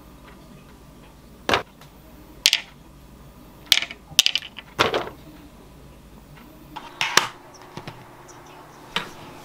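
Almonds being picked from a plastic jar and dropped onto a ceramic plate: a string of small, sharp clicks and clinks, with a quick run of them in the middle of the stretch and a few separate knocks near the end.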